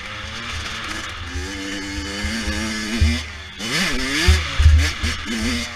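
Dirt bike engine under throttle, its pitch rising and falling as it revs, with the sharpest rise and fall about two-thirds of the way in, along with several low thumps.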